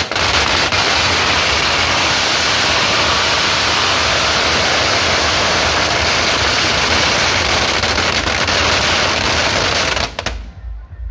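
A long string of firecrackers going off in a dense, continuous crackle for about ten seconds, then stopping abruptly near the end.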